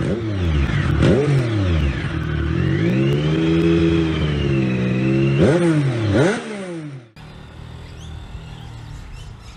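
Motorcycle engine revving as a sound effect: a quick blip about a second in, a long rise to a held rev that sags back, then two sharp blips near the end. It cuts off abruptly, leaving a motorcycle running quietly at low revs.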